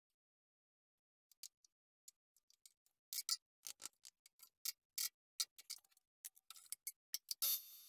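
Metal clicks and taps as steel parallels and an aluminium block are set into a milling machine vise, sparse at first and then in quick irregular runs. Near the end a louder noise comes in and settles into a steady machine hum.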